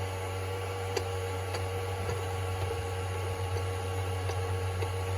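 8mm film projector running: a steady motor hum with a few faint, irregular ticks from its mechanism.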